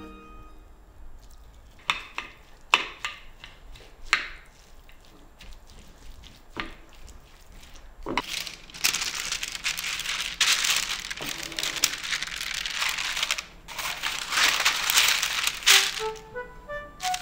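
A few sharp taps, then a long stretch of wooden spoon stirring and scraping a wet tuna-and-mayonnaise filling in a ceramic dish. Parchment paper rustles and crinkles as a hand smooths it flat near the end. Soft plucked-string music comes back at the close.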